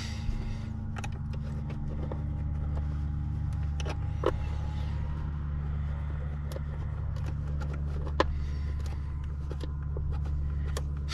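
A steady low mechanical hum with scattered light clicks and taps of speaker parts being handled; two sharper ticks stand out, about four and eight seconds in.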